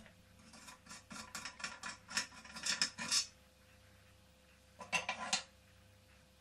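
Clicking and rattling of small metal parts as toy steam engines are handled: a run of quick clicks lasting about three seconds, then a shorter burst of rattling about five seconds in.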